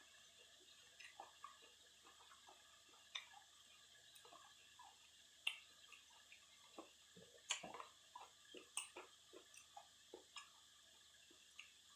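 Quiet eating sounds: scattered wet mouth clicks and smacks of chewing noodles, over a faint steady high drone of cicadas.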